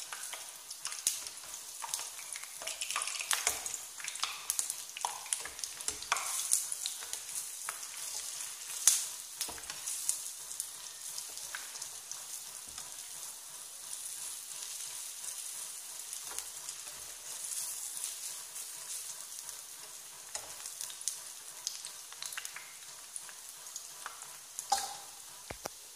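Urad dal vadas deep-frying in hot oil: a steady sizzle full of crackling pops. A perforated metal skimmer stirs them now and then in the pan, as they puff up partway through frying.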